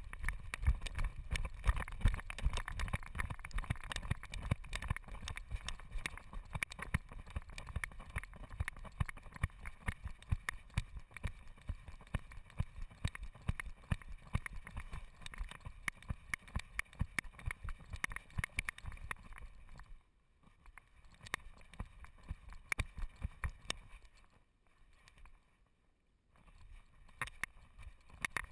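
Rhythmic thumps and knocks from a running dog's strides, picked up through a GoPro Hero 2 strapped to its chest. They stop sharply about twenty seconds in, go nearly quiet for a couple of seconds, then return faintly near the end.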